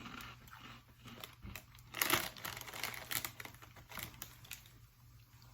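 Snack bag crinkling as it is handled, in irregular rustles, loudest about two seconds in.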